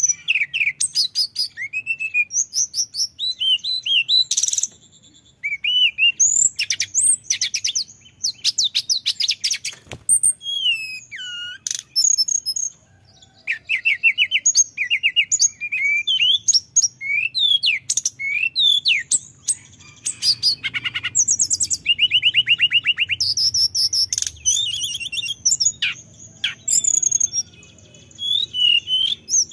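Male hill blue flycatcher singing non-stop: a long, varied song of clear high whistles, slurred notes and fast rattling trills, with only brief pauses between phrases.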